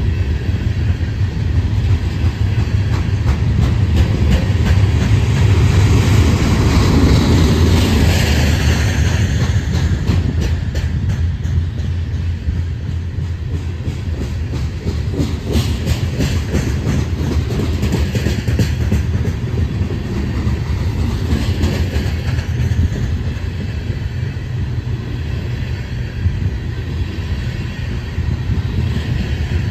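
Loaded coal hopper cars of a freight train rolling past at close range: a steady heavy rumble with a running clickety-clack of wheels over the rail joints, a little louder about five to nine seconds in.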